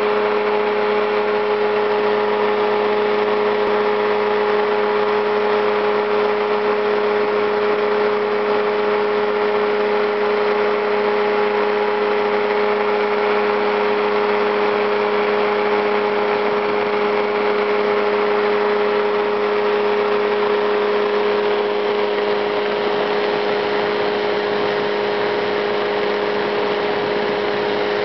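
Ultralight powered parachute's engine and propeller running steadily in flight, a constant drone with a strong steady hum. It gets slightly quieter in the last few seconds.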